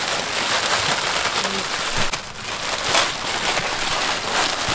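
Plastic bags crinkling and rustling as several packs of fresh rice noodles are unwrapped by hand, with a brief lull about two seconds in.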